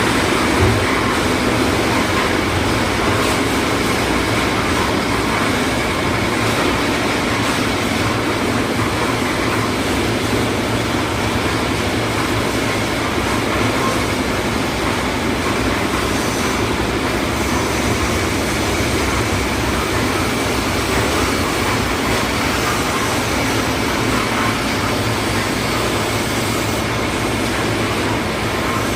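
Concrete mixer with lift hopper running: a steady, unbroken mechanical rumble with a constant hum.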